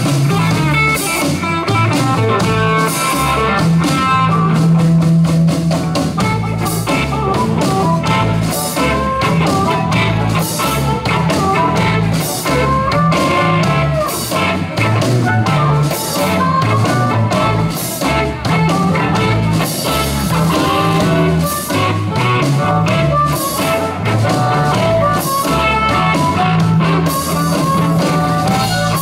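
Live blues band playing an instrumental break without vocals: lead electric guitar and harmonica over a drum kit.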